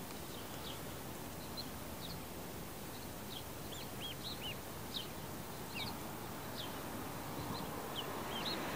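Black Swedish ducklings peeping: short, high chirps, a couple a second at irregular intervals, over steady background noise.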